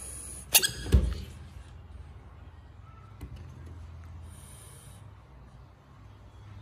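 A large frog lunging at a hand reaching for its shrimp: a short sharp sound about half a second in, then a heavier low thump on the woven bamboo tray.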